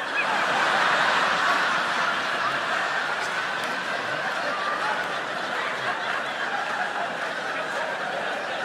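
Audience laughing hard right after a punchline, swelling at once and then slowly dying down.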